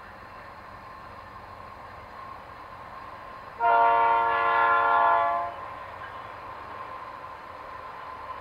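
Air horn of a Canadian Pacific diesel freight locomotive sounding one long chord-like blast of about two seconds, starting just over three seconds in. Under it is the steady running sound of the approaching train.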